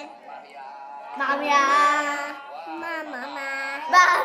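Young girls chanting an Arabic prayer phrase in a long, drawn-out sing-song voice, in imitation of pilgrims' chanted supplication, with a sudden loud cry near the end.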